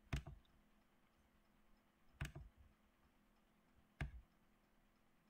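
Computer mouse clicking three times, about two seconds apart, each a quick double tick of the button pressed and released, over near-silent room tone.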